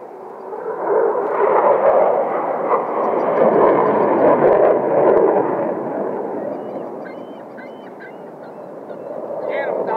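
An aircraft flying past with a rushing engine noise that swells about a second in, stays loud for several seconds, then fades away.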